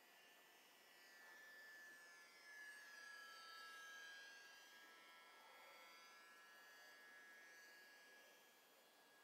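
Faint high-pitched whine of an Eachine Spitfire RC model plane's electric motor and propeller in flight, its pitch bending up and down as the plane passes, loudest around three to four seconds in.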